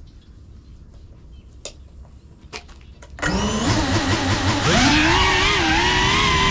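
GEPRC Cinelog 35 FPV cinewhoop drone: low rumble with a few faint ticks, then about three seconds in its motors and ducted propellers spin up suddenly into a loud whine of several pitches. The pitches waver and climb as it lifts off.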